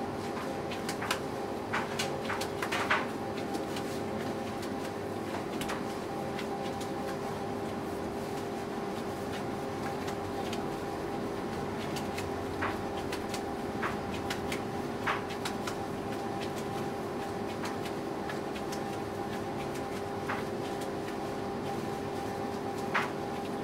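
A steady mechanical hum with scattered sharp clicks and knocks, several close together in the first few seconds and a few more later on.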